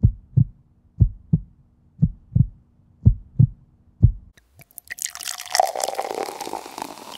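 Heartbeat sound effect: double low thumps, lub-dub, about one a second, four times and then once more over a faint hum, stopping about four seconds in. A crackling, papery rustle follows for the rest.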